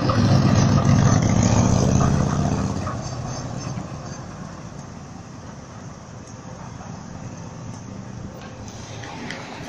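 B2-class tram passing close by, a loud low hum and rumble that fades over the first three to four seconds as it pulls away. Steady street traffic noise remains after it.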